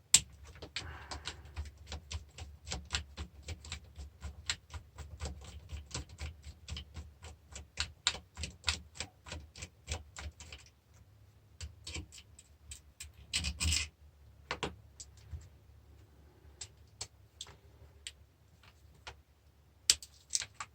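Ratchet tool clicking in a steady rhythm, about four clicks a second, as fasteners are undone. About halfway through it stops, leaving a few scattered clicks and a short rattle of parts.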